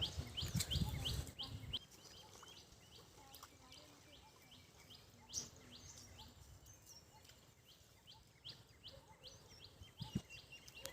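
Faint bird calling over and over: short high chirps, about three a second, that fade for a few seconds in the middle and come back. Low rumbling noise in the first couple of seconds.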